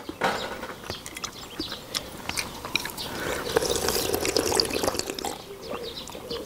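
Seafood stew broth ladled from a metal pan into a bowl, with dripping and light clinks, then slurped loudly from the bowl for a couple of seconds about halfway through.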